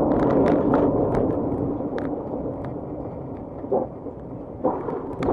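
Camper van on the move: a steady low rumble of road and engine noise that eases off and gets quieter over the first few seconds, with scattered light clicks and rattles.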